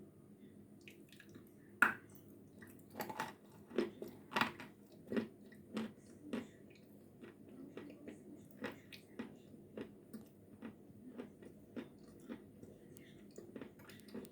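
A piece of eating chalk snapped off with the teeth, one sharp crack about two seconds in, then crunchy chewing of the crumbly chalk at a steady pace, softer in the second half.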